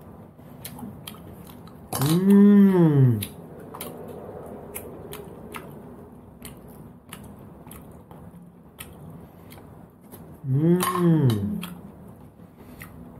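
Eating cooked snails: small sharp clicks of shells and a toothpick prising out the meat, shells dropped into a ceramic bowl, and chewing. Twice a short voiced sound from the eater that rises and falls in pitch, about two seconds in and again near the end.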